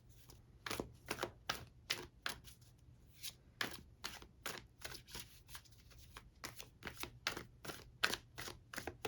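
A tarot deck being shuffled by hand: a continuous run of short, irregular card clicks, about two or three a second.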